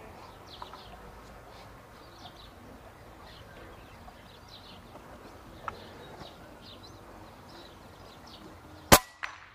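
Small birds chirping, then near the end one sharp shot from a Reximex Accura .25 calibre PCP air rifle, whose shrouded barrel has a built-in sound moderator.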